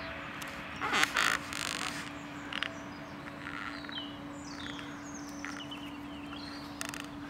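A crow cawing twice about a second in, then faint chirps of small birds. A faint steady hum runs underneath.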